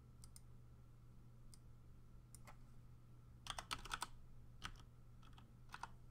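Faint keystrokes on a computer keyboard typing a short command. A few scattered clicks come first, then a quick run of keystrokes about halfway through and three more spaced apart near the end, over a low steady hum.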